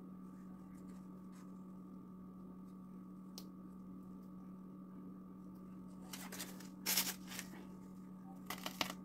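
Plastic piping bag crinkling in a few short bursts as it is handled and squeezed, in the second half, over a steady low electrical hum.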